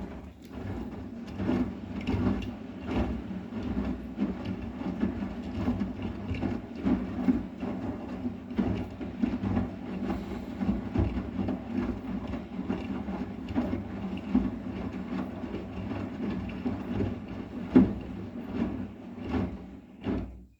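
Arçelik 9120M front-loading washing machine running its wash cycle with a steady motor hum and irregular knocking and clattering as the drum turns the load, one knock louder than the rest near the end.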